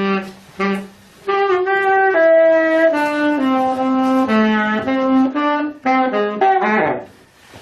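Saxophone playing a slow melodic phrase of held notes, with short breaks in the first second. The phrase ends in a quick downward slide of pitch.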